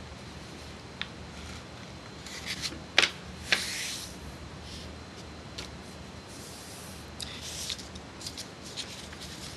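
A sheet of printer paper being folded and creased by hand: scattered crinkles and taps, with a sharp snap about three seconds in followed by a brief rustle.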